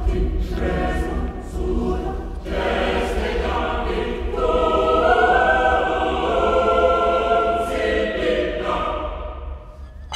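Background music of a choir singing long held notes, fading out near the end.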